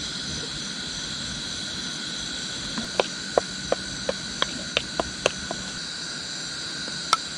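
Metal spoon clinking against a plate while stirring mustard powder and water into a paste: a run of sharp clinks, about three a second, starting about three seconds in. Under it, a steady high-pitched chorus of night insects.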